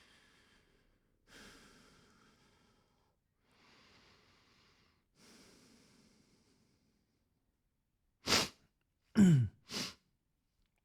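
A person breathing softly in and out, four slow breaths, then near the end three sharp, much louder breath sounds close together. The middle one is voiced and falls in pitch.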